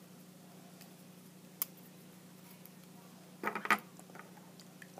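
Hands handling small plastic mini football helmets: a faint click about a second and a half in, then a short cluster of sharp plastic clicks and rattles about three and a half seconds in, over a low steady hum.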